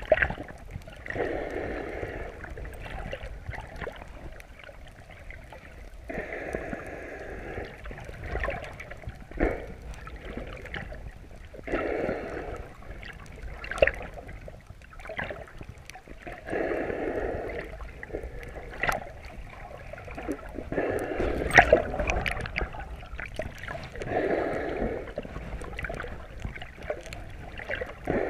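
Muffled underwater sound through a chest-mounted GoPro's housing while snorkelling: a rushing swell about every five seconds, each lasting a second or two, with scattered sharp clicks in between. The slow, even swells fit the snorkeller's breathing through the snorkel.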